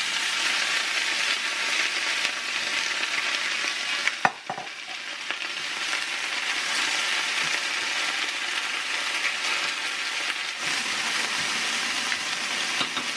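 Garlic and butter sizzling in hot oil in a frying pan: a steady hiss, with one sharp knock about four seconds in.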